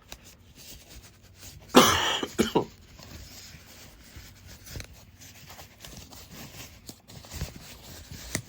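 A person coughs about two seconds in, a loud burst with a smaller second one just after, over faint handling and rustling of packaging as the speaker is pulled from its box.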